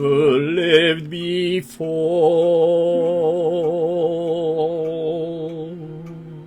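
Solo voice singing a musical-theatre ballad in English over a sustained accompaniment chord. After a short phrase it holds one long note with steady vibrato from about two seconds in, fading slowly near the end. It is a long-tone test by a singer whose throat is out of condition.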